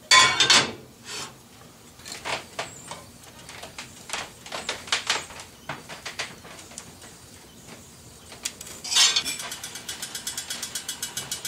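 Metal spatula scraping and turning potatoes in a skillet on a wood cook stove, with clanks as the lid is lifted and set back on. After the lid goes on, about nine seconds in, it starts rattling quickly and evenly as steam builds under it.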